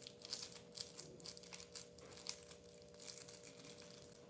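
Plastic shrink-wrap on a trading-card deck box crinkling and crackling in quick, irregular bursts as it is picked and pulled at to get it open.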